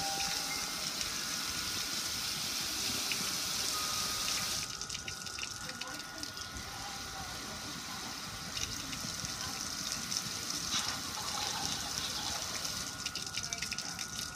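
Water pouring and splashing over the lid and front panel of a metal gas grill, a strong rushing spray for the first four or five seconds, then a lighter spatter of drips and splashes.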